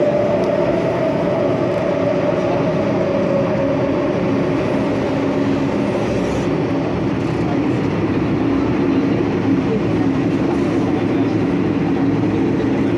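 Subway train running through a tunnel, heard from inside the car: a steady rumble and hiss with a motor tone that drifts slowly down in pitch over the first few seconds. The train enters a station near the end.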